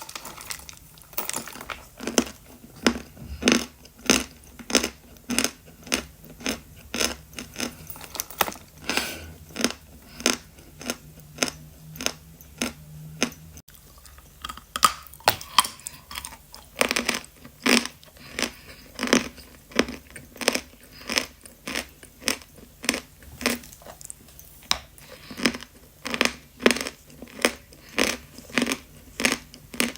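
A person chewing a mouthful of Khrapovsky eating chalk close to the microphone: a regular train of short crunches, about two a second, as the chalk breaks up in the mouth.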